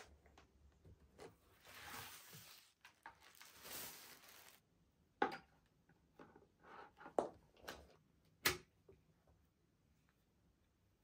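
Handling noise from unboxing an electric kettle: a rustle and scrape of packaging as the kettle comes out of its cardboard box. Then a few sharp clicks and knocks as the kettle and its metal lid are picked up and handled.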